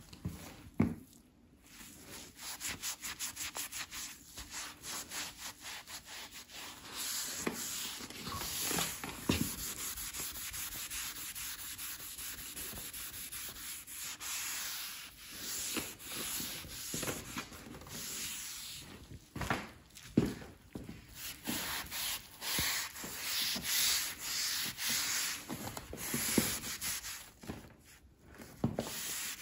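Damp microfiber cloth rubbed briskly back and forth over a quartz worktop: a long run of quick, scratchy wiping strokes with a few brief pauses.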